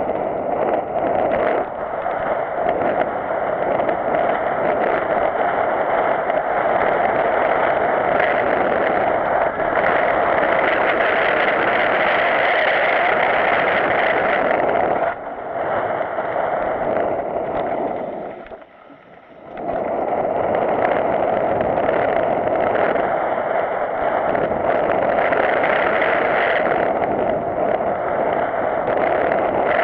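Mountain bike descending a rocky dirt singletrack, heard from a GoPro on the rider: a steady rush of wind and tyre noise on gravel with rattling from the bike. The noise drops away briefly for about a second a little past the middle.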